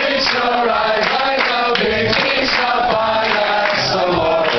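Music with singing voices, playing loudly and without a break.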